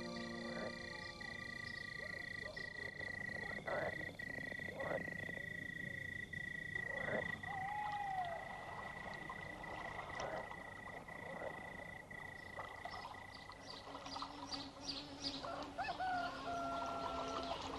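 Frogs croaking in a night-time soundscape over a steady high tone that stops about two-thirds of the way through; near the end, quick chirps and whistled calls come in.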